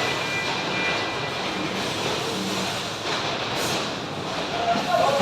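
Steady roar of factory machinery: a continuous, even mechanical noise with no clear rhythm or strokes.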